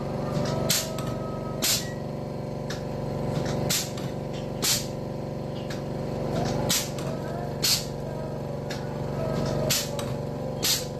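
Wire straightening and cutting machine running with a steady motor hum, broken by short, sharp cutting strokes that come in pairs a second apart, about every three seconds.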